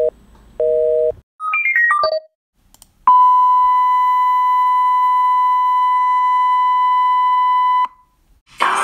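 Telephone busy signal pulsing about twice a second, then a quick run of electronic beeps at changing pitches. After that comes a steady 1 kHz bars-and-tone test tone, held for about five seconds and cut off suddenly.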